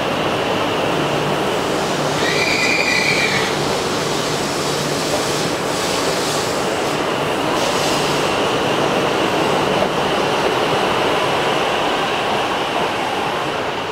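E6 series shinkansen electric train pulling out and gathering speed past the platform: a steady rumble of wheels and running gear with a high whine over it. A short high-pitched squeal sounds about two seconds in.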